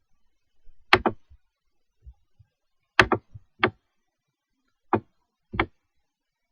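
Computer mouse clicking: about eight short, sharp clicks, some in quick pairs or threes, at irregular intervals.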